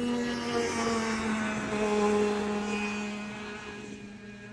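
Go-kart engine running as a kart passes along the straight. Its pitch drops slightly about a second in, the sound grows to a peak about two seconds in, and it fades as the kart pulls away.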